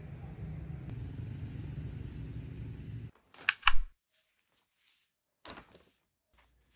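Steady low rumble of a moving vehicle with wind, cut off suddenly. In a quiet room, two sharp loud knocks follow about half a second apart, the second with a low thump, then a few faint rustles, like a paper shopping bag being set down.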